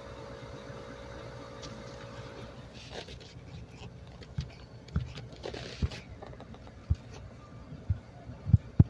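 A steady vehicle engine hum that stops about three seconds in, followed by scattered knocks and taps from the phone being handled and bumped, coming more often near the end.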